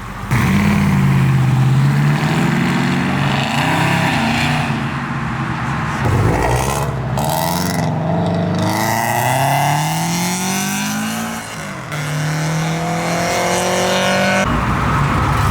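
A modified car's engine accelerating hard, its pitch climbing and dropping back several times as it pulls away.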